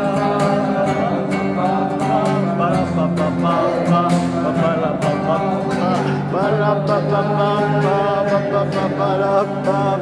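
Acoustic guitar strummed as live accompaniment, with a voice singing over it.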